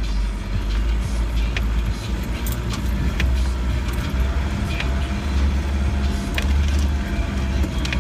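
Land Rover engine and drivetrain rumbling steadily at low speed, heard from inside the cab as it bounces along a rutted dirt track, with scattered rattles and knocks from the body and loose items in the cabin.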